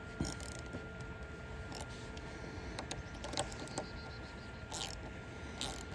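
Scattered light metallic clicks and ticks, with a quick run of ticks a little past the middle, as wire-rope U-clamps are fastened onto a coated wire cable.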